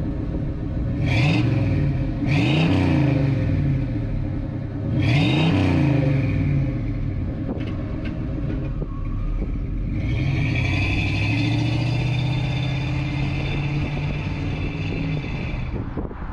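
1977 Chevrolet Malibu wagon's V8 running through a fresh exhaust and mufflers: revved three times from idle, about one, two and five seconds in, then held at a steady drone as the wagon pulls away, dropping off near the end.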